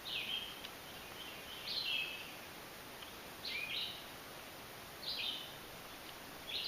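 A songbird calling over and over: a short, high call repeated about every second and a half to two seconds, five times, over a steady background hiss.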